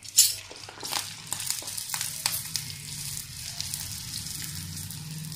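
A dried sabudana (sago) papad deep-frying in hot oil in a kadhai: a sharp burst of sizzling as it goes in just after the start, then continuous crackling sizzle.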